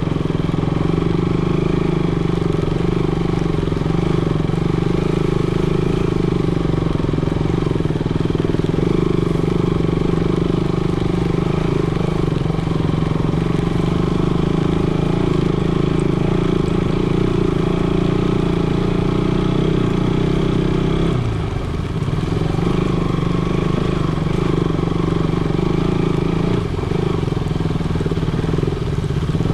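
KTM sport motorcycle engine running steadily under way, heard from the bike itself. About two-thirds of the way in the engine note drops and dips briefly as the throttle eases off, then picks up again.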